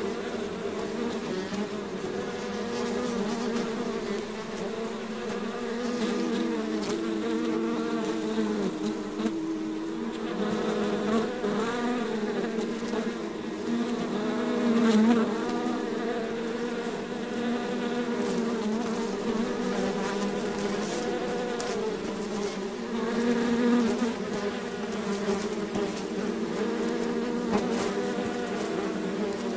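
A swarm of bees buzzing: many wings humming at several overlapping, wavering pitches, with a bee passing closer and louder now and then.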